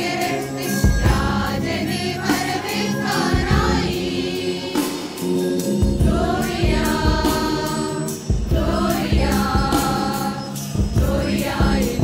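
A women's choir singing a Christmas song in unison, with instrumental accompaniment.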